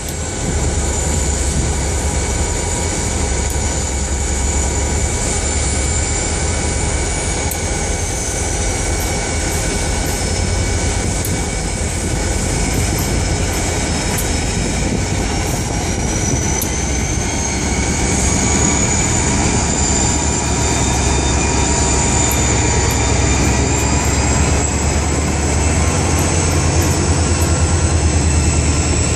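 Several EMD SD40-series diesel-electric locomotives, turbocharged V16 two-stroke engines working under power, approaching and passing close by. A deep steady engine rumble sits under a high turbocharger whine that dips in pitch about halfway through and rises again, and the sound grows a little louder near the end.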